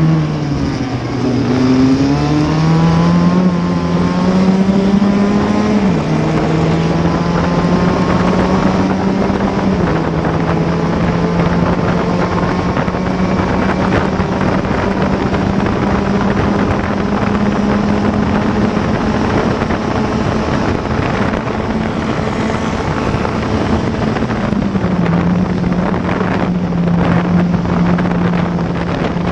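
In-car sound of a classic Formula Ford's Ford Kent 1600 four-cylinder engine at racing speed. Its revs climb and drop sharply on an upshift about six seconds in, then hold high and steady down the straight, with the note stepping down again near the end. Wind buffets the microphone in the last few seconds.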